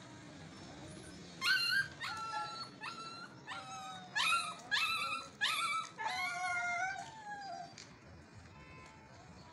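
Siberian husky puppies whining and yipping: a string of about nine short, high-pitched cries, some bending in pitch, that dies away near the end.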